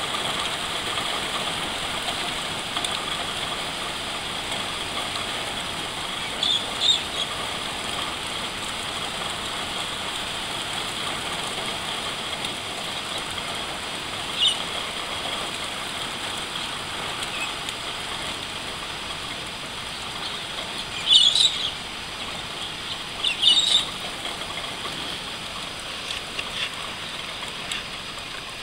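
Steady hiss of rain falling, with a few short bird chirps: a pair about six and a half seconds in, one near the middle, and louder ones a little past two-thirds of the way through.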